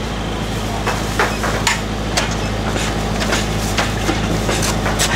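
Irregular knocks and clinks of kitchen utensils, about two a second, over a steady low hum.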